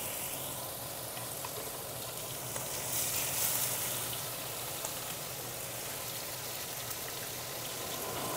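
Seasoned bone-in steaks sizzling steadily in butter and oil in a hot nonstick pan, swelling slightly about three seconds in. This is the searing sizzle the cook wants to hear: a pan hot enough to brown the meat.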